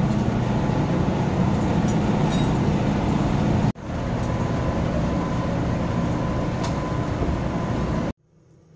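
Steady street traffic noise with a low engine hum. It drops out for an instant a little over a third of the way in and resumes, then cuts off near the end.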